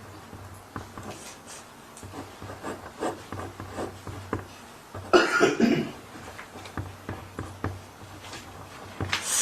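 A person coughs once, a short harsh cough about five seconds in, with faint rustling and small knocks around it.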